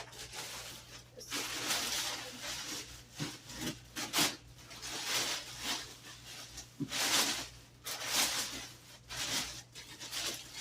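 Plastic tube being pushed and worked into a plastic shampoo basin: several irregular rubbing, scraping strokes of plastic on plastic, each about a second long.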